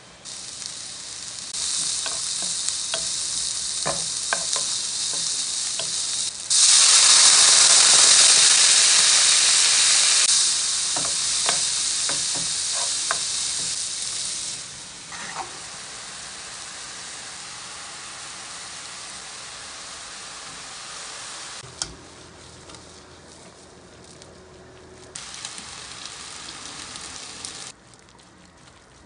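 Diced speck sizzling as it fries in a hot frying pan, with light taps and scrapes of stirring. The sizzle swells loudest for a few seconds partway through, then drops to a quieter hiss.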